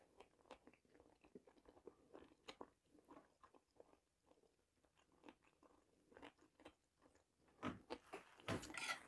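Faint chewing picked up close by a clip-on microphone: soft, irregular mouth clicks and smacks, with a few louder ones near the end.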